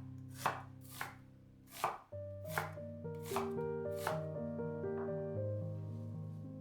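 Knife chopping on a cutting board: about seven separate cuts at an unhurried pace, stopping about four seconds in, over soft background piano music.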